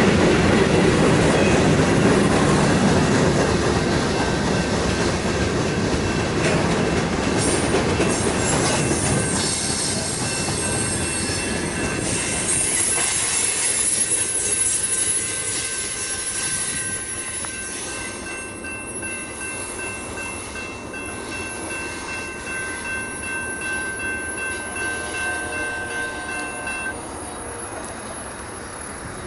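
Freight cars rolling past on steel rails, fading as the end of the train moves away around a curve. In the second half, thin steady high-pitched wheel squeal joins the rolling noise.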